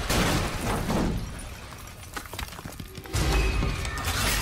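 Cartoon fight sound effects over background music: a crash as a body slams into a wall and debris breaks away, then a second heavy, deep impact about three seconds in.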